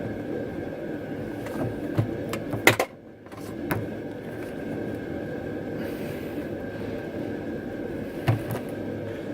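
A rubber hose being forced onto a brass hose fitting: a few sharp knocks and clunks from the handling, the loudest about two and a half seconds in. A steady hum runs underneath.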